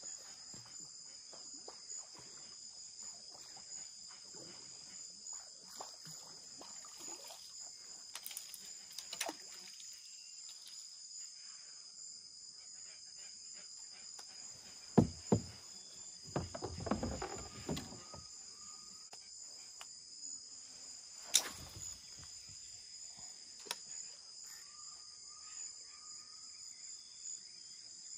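Steady insect chorus holding two constant high-pitched tones. Several sharp knocks and a short patch of rustling break in around the middle, the loudest about halfway through.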